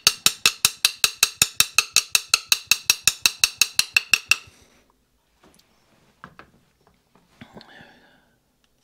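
Rapid, even metallic clicking, about five or six clicks a second, as a screwdriver works the main jet out of a Honda mower carburettor. It stops about four and a half seconds in, followed by a few faint knocks and handling sounds.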